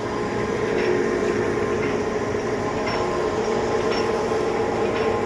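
1982 Kuraki hollow-spindle engine lathe running with its spindle at low speed: a steady mechanical hum and gear whine with faint clicks about once a second.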